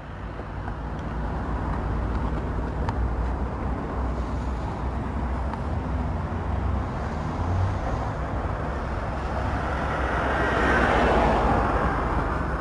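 Background road traffic: a steady low rumble, with one vehicle passing that is loudest about ten to eleven seconds in.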